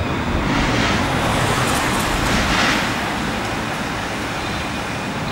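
City street traffic noise. A road vehicle passes close by, its hiss swelling about half a second in and fading by about three seconds.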